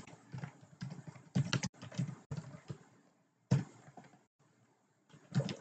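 Typing on a computer keyboard: a run of irregular keystrokes with short pauses between them.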